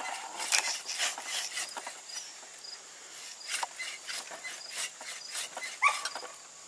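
Scattered crackling and rustling of brush and twigs, with a short whine about six seconds in that is typical of a dog whimpering, and faint insects chirping.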